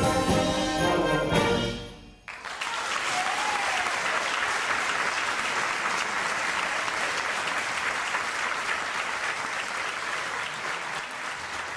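A concert band of woodwinds and brass ends on a held chord that cuts off about two seconds in. Audience applause follows at once and carries on steadily, easing off slightly toward the end.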